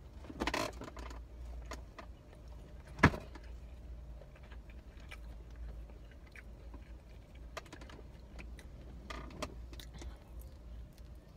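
Scattered light clicks and rustles of pizza being handled in its cardboard box, with one sharp click about three seconds in, over a low steady hum.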